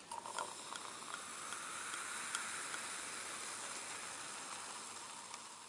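Champagne fizzing: a steady hiss with faint crackles of bursting bubbles. It grows a little louder over the first two seconds, then slowly fades.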